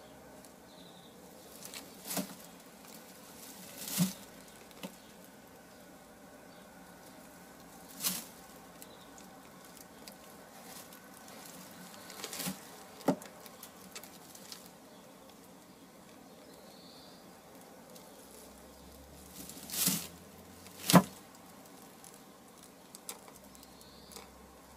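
Dry straw crackling in short sharp snaps as a Sussex hen shifts her weight on the nest while laying an egg, about seven scattered crackles over a faint steady background, the loudest two near the end.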